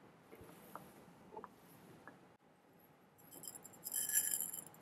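Mustard seeds pouring into a small nonstick pan of hot oil for tempering: a dense rattling, crackling patter that starts about three seconds in and lasts about two seconds, after a few faint clinks of kitchenware.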